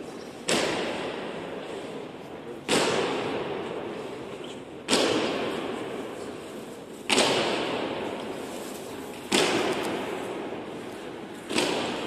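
Honour guard's boots stamping in unison in a slow ceremonial march step: six loud stomps about two seconds apart, each ringing on in a long echo through the large round hall.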